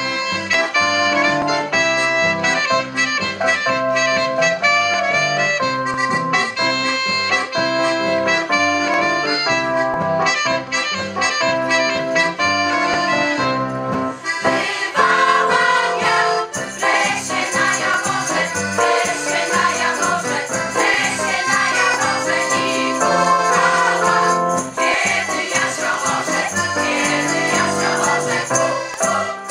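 Background music, continuous; about halfway through it changes to a denser, brighter passage.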